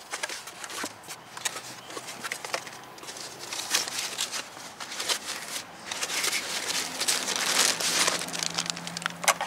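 Packing wrap crinkling and rustling as a hand digs through a cardboard box to unpack a new brake caliper, with many small crackles and sharp clicks; the rustling gets denser and louder in the second half.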